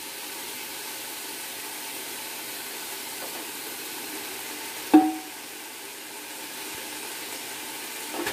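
Vegetables and sauces sizzling steadily in a hot pan over high flame. About five seconds in, a utensil strikes the pan once with a sharp, briefly ringing clank.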